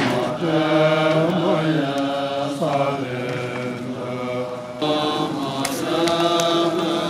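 Bön monks chanting prayers together in long held, sustained notes that shift slowly in pitch. The chant changes abruptly about five seconds in and carries on.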